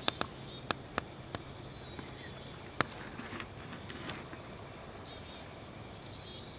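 Songbirds chirping and trilling in the background, with a few faint sharp clicks over a low steady hum.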